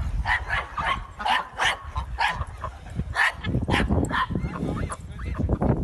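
A small dog yapping repeatedly in quick, sharp barks, several a second, over a steady low rumble.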